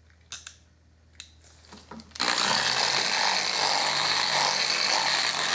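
A variable-speed power polisher, set to speed 3, starts up about two seconds in and runs steadily, its pad buffing metal polish on the saw's metal tabletop. A few light clicks of handling come before it.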